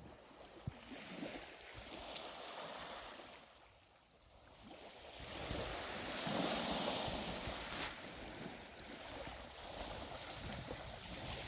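Small waves lapping and washing on a pebble beach, the wash dipping and then swelling for a few seconds about halfway through, with a few faint clicks.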